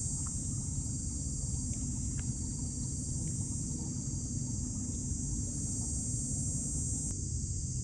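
Outdoor ambience: a steady, high-pitched drone of insects over a low rumble, with a few faint clicks. The sound changes abruptly near the end.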